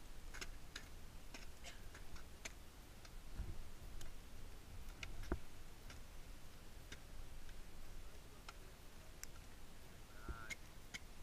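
Scattered sharp clicks and ticks, a few a second at irregular intervals, with a few heavier knocks, the loudest about five seconds in, over a faint low rumble.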